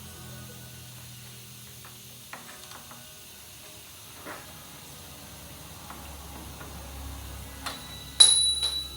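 A screwdriver prying at a steel strut fork and control-arm bushing: a few light metal clicks, then a sharp metallic clank with a short ring about eight seconds in.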